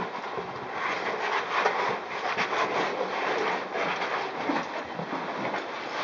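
A caver's oversuit and gear scraping and rustling on rock and gravel while crawling through a tight squeeze: an irregular shuffling scrape.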